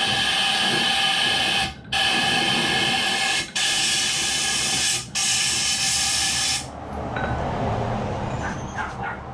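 Loud hissing jet of pressurised air or spray with a faint steady whistle in it, in four bursts separated by short breaks. It stops about two-thirds of the way through, leaving quieter workshop noise.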